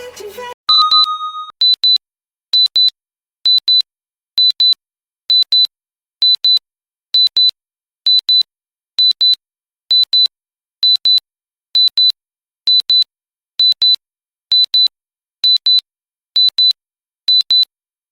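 Digital timer alarm beeping: after a short lower tone, high-pitched beeps in pairs repeat steadily about once a second, the sign that the countdown has reached zero. Music cuts off just before the beeping starts.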